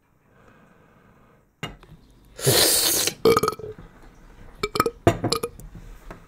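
A loud, raspy burp lasting under a second, about two and a half seconds in, after a pretend drink of the green play-dough. It is followed by several sharp clinks of a drinking glass being set down on a table.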